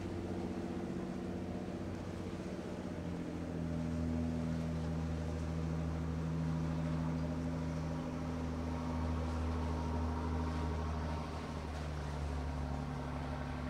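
Low, steady drone of a ship's diesel engines carried over the water, the hum shifting slightly in pitch about three seconds in and again near the end.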